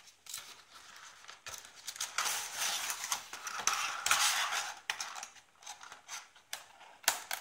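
A cardboard box being opened and its clear plastic insert tray handled: scraping, rustling and crinkling with scattered clicks. It is loudest between about two and four and a half seconds in.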